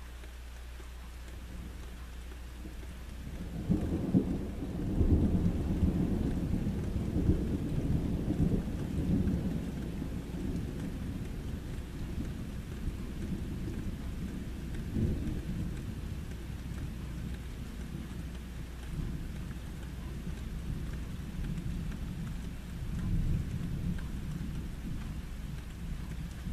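A long roll of thunder begins about three and a half seconds in, loudest over the next several seconds, then rumbles on with smaller swells twice more. Steady rain falls throughout.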